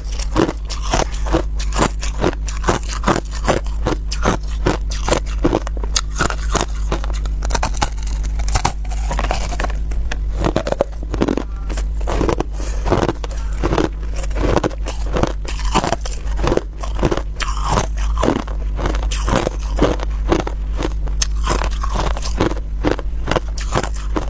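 Crushed ice being bitten and chewed close to a clip-on microphone: a fast, unbroken run of crisp crunches, several a second, over a steady low hum.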